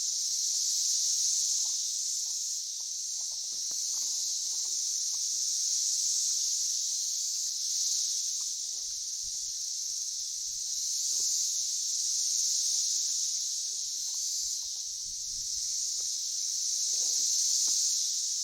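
A dense chorus of insects, a steady high buzz that swells and fades every two to three seconds, with faint small rustles and taps beneath it.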